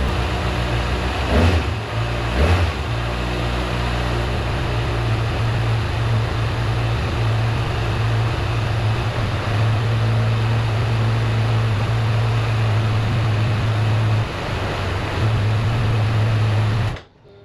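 Kawasaki ZX-6R sport bike's inline-four engine warming up: two quick throttle blips, then a steady idle. The engine is switched off and cuts out suddenly about a second before the end.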